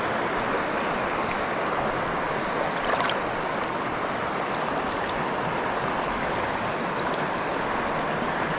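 Steady rush of a small creek's running water close by, with a brief louder burst about three seconds in.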